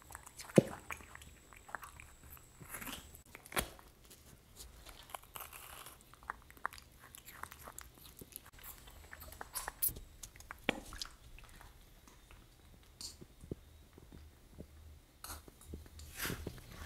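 A baby monkey biting into and chewing a crisp wax apple: irregular wet crunches, smacks and small clicks of the mouth.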